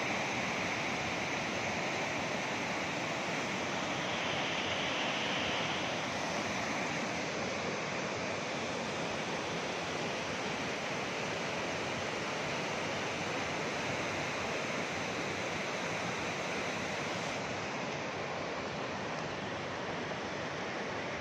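A fast, turbulent mountain river rushing, heard as a steady wash of noise.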